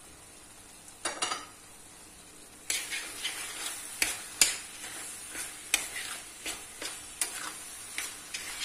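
A spoon stirring walnuts into minced-meat filling in a stainless steel pot, scraping through the mixture and knocking against the pot's sides in repeated strokes from about three seconds in, after a short clatter about a second in. Under it, a faint steady sizzle of the filling still cooking over the gas flame.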